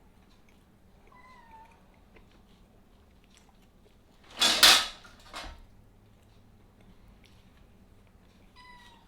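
A cat meowing twice: short meows that fall in pitch, about a second in and again near the end. About halfway there is a loud, brief rushing noise close to the microphone, followed by a smaller one.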